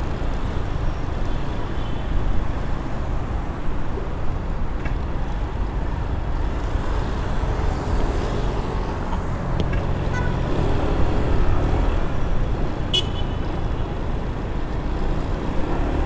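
Motor scooter riding noise picked up by a helmet-mounted GoPro microphone: steady low rumble of wind, engine and road with city traffic around, and a short sharp sound about thirteen seconds in.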